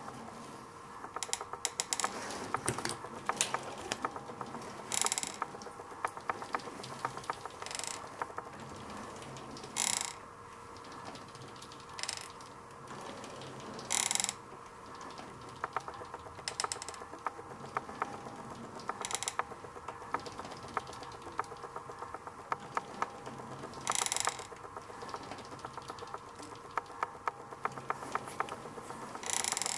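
Bicycle cotterless crank turning, with rapid fine ticking throughout and a louder scraping noise every few seconds at one point in the crank's rotation. The owner suspects this is a fault in the bottom bracket.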